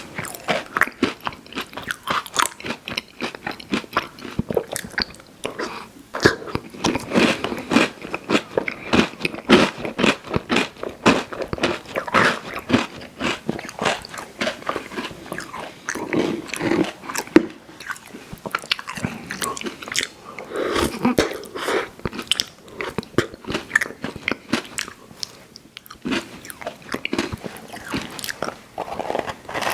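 Close-miked chewing and biting of candy and fondant sweets: a dense, uneven run of short mouth clicks and smacks.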